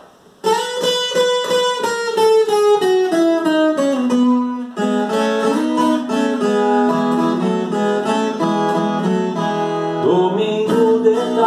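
Ten-string viola caipira playing an instrumental introduction: a quick run of plucked notes stepping down in pitch, then fuller phrases with several notes sounding together. A man's singing voice comes in over it near the end.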